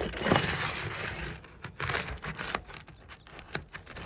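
Asphalt roof shingles being pried up and unsealed from their sealant strip: a dense rough scraping noise for the first second or so, then several short separate scrapes and clicks.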